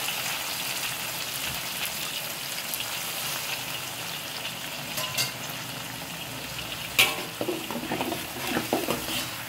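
Blended spinach paste sizzling on sautéed onions and tomato in hot ghee in a wok, a steady hiss. About seven seconds in, a spatula clacks against the wok and starts stirring, scraping the pan in short strokes.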